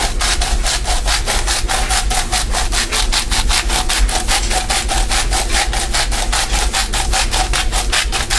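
Pepper mill being twisted, grinding pepper in a rapid, even run of rasping strokes, about six a second.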